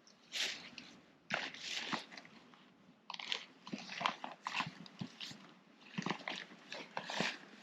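Camping gear being handled and packed away: irregular bursts of crinkly rustling and crunching, a dozen or so, with short pauses between them.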